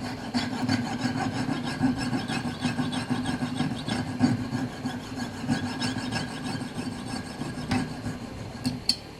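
Piercing saw cutting into a brass clock wheel to remove bent teeth, with a steady run of short back-and-forth rasping strokes. A couple of sharp clicks sound near the end, just before the strokes stop.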